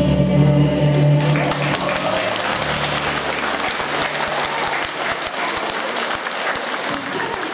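Audience applauding, with the last held note of a song still sounding for the first second or two before the clapping takes over.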